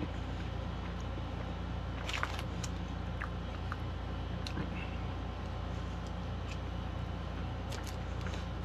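A person chewing food with their mouth closed, with a few faint small clicks and crinkles from handling the food, over a steady low background hum.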